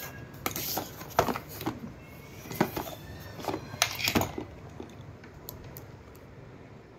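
Cardboard shipping box being handled, turned over and set down on a tile floor: a string of knocks, taps and rustles for the first four seconds or so, then quieter handling.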